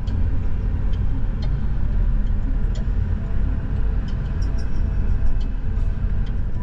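A car driving: a steady low rumble of engine and tyre noise, with a few faint ticks.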